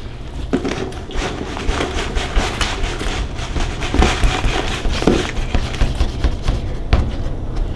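Live rusty crayfish being shaken out of a wet cardboard box into a pot of water at a rolling boil: a busy, irregular clatter of shells scraping and knocking on the cardboard and pot, with the box being handled, over a low steady rumble.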